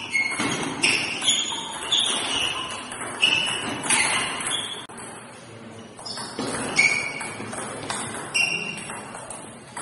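Table tennis ball being struck back and forth in rallies, each bat or table hit a short, sharp ping. The hits come roughly every half second to second, with a pause of about a second and a half midway between rallies.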